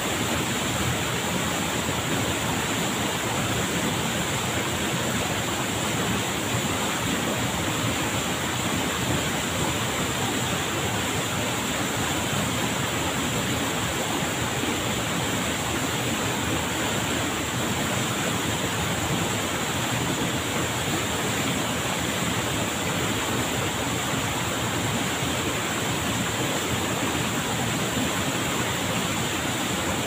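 Waterfall pouring into a plunge pool: a steady, unbroken rush of falling water.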